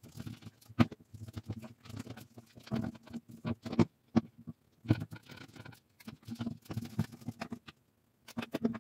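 Irregular clicks, knocks and scraping of shelf parts being handled and fitted together: dark pole sections pushed and twisted into place through a wooden shelf board while assembling a corner shelf. The sharpest knocks come about a second in and near four seconds.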